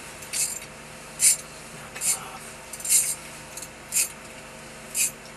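Six short, hissy rasping strokes, about one a second, over a steady low background hum.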